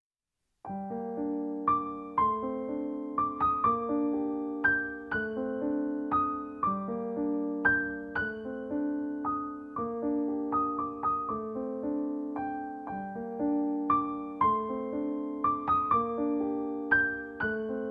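Background piano music: a slow melody of struck notes over held chords, starting just under a second in.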